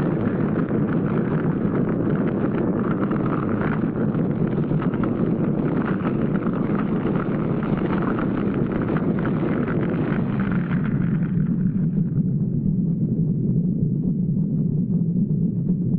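Blast of a nuclear test explosion: a continuous rumbling roar. About twelve seconds in, its upper hiss dies away and a low rumble remains.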